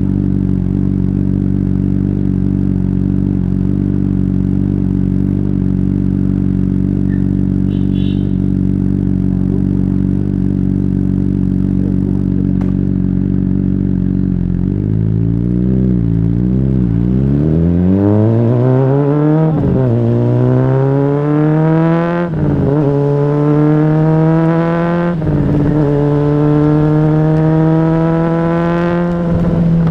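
Honda CBR600RR inline-four with an aftermarket exhaust, running at a steady engine speed for about half the time. It then accelerates hard through the gears: the pitch climbs and drops sharply at each of about four upshifts.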